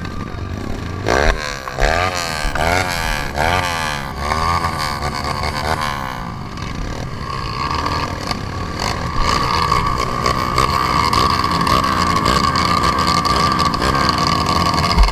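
Motocross dirt bike engine revving up and down again and again as the throttle is worked over rough ground, then holding a steadier high rev for the second half.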